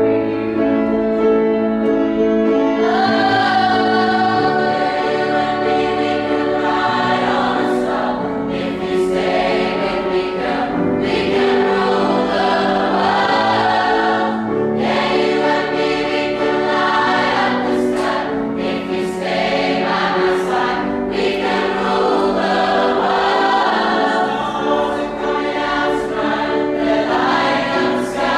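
Choir singing in several-part harmony with long held notes. Higher voices join about three seconds in, filling out the chord.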